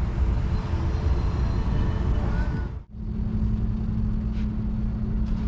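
Urban traffic rumble, a dense, even street noise, which cuts off about three seconds in and gives way to a steady low hum.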